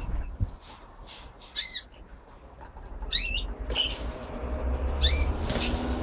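Young budgerigars giving short, scratchy chirps and squawks: one about two seconds in, then a quicker run of several calls in the second half. A low rumble builds in the background over the second half.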